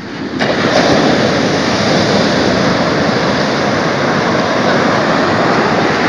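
Ocean surf breaking and washing up a sandy beach: a steady rushing wash that jumps louder about half a second in and then holds.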